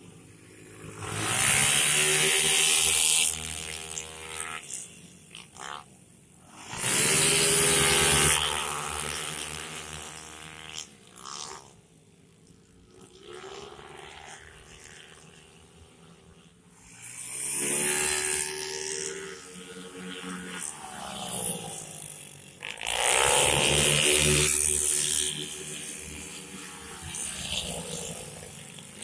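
Racing underbone motorcycles and scooters passing at high revs in bunches, about four times, each pass swelling loud and then falling away in pitch as the bikes go by.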